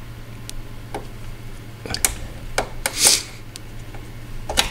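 Scattered plastic clicks and rattles from a tail light's wiring connector being squeezed and worked loose by hand, with a short scraping rustle a little past the middle. A steady low hum runs underneath.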